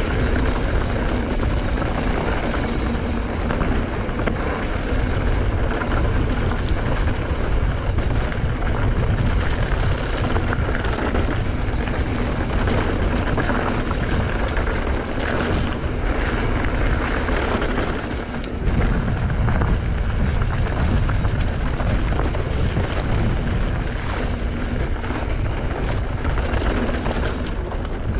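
Wind rushing over an action camera's microphone as a mountain bike rides fast down dirt singletrack, with the rumble of knobby tyres on the dirt and occasional rattles from the bike. It is loud and steady, easing off briefly about two-thirds of the way through.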